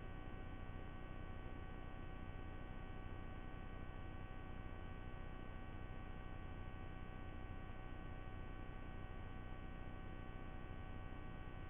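Steady electrical hum and hiss from the nest camera's microphone system, with several faint steady whining tones over it. No bird calls are heard.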